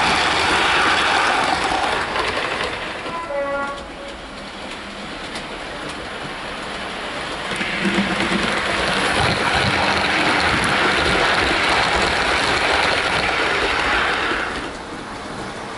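Hornby OO-gauge HST model train running along the track, its motor and wheel noise loud, easing off about three seconds in and building again from about seven and a half seconds before dropping near the end. A quick falling run of tones comes at about three and a half seconds.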